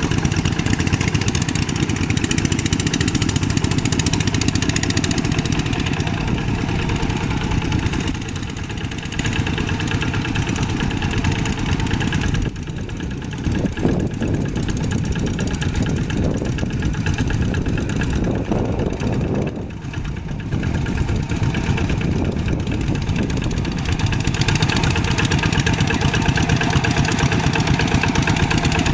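Old tractor engine running steadily, its sound dulling for several seconds midway and then coming back full.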